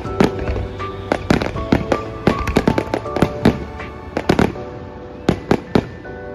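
Fireworks going off in a rapid barrage of sharp bangs, thinning out after about four and a half seconds, with music playing underneath.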